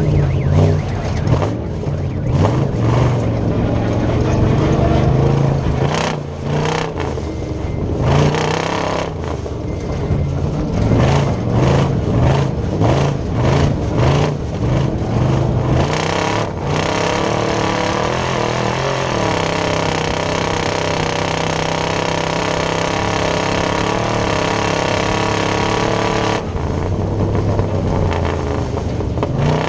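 Class 1450 Chevy S10 off-road race truck's engine running hard, its revs repeatedly climbing and dropping through shifts and throttle lifts, with sharp knocks in between. For several seconds past the middle it holds steady at high revs, then goes back to rising and falling near the end.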